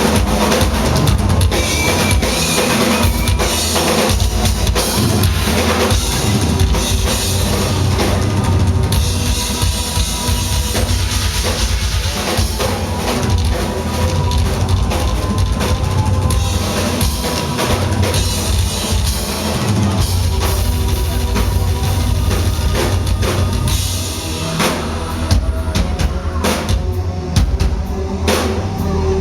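Live rock drum kit solo: a dense, fast stream of bass drum and cymbal strokes with a heavy low end, breaking into more separate, spaced hits near the end.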